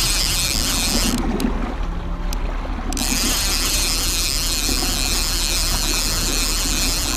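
Fishing reel being cranked, its gears whirring. The cranking stops for about two seconds, with a couple of clicks, then starts again, over wind and the low rumble of the boat.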